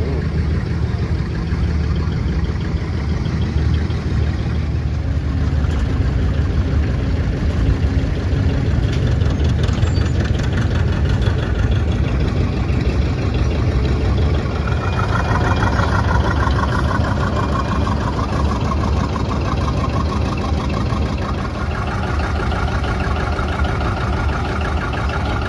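Tractor engines running steadily at low speed, a continuous low drone, with a second, higher engine note joining about halfway through.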